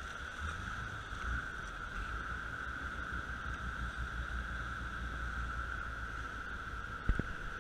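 Speedboat engine running steadily, a low rumble with a constant higher whine. A single short knock comes about seven seconds in.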